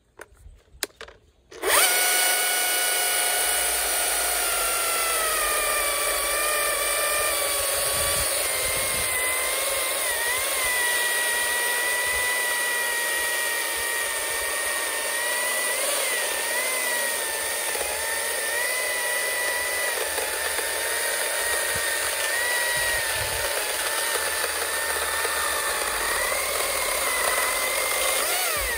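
Husqvarna T540iXP battery chainsaw cutting through a dense, seasoned holm oak log at full power on a small BLi100 battery, one the user would not normally pick for timber of this size and density. The motor's whine starts about two seconds in, dips in pitch over the first few seconds as the chain bites, then holds with small wavers through a long cut that stops near the end.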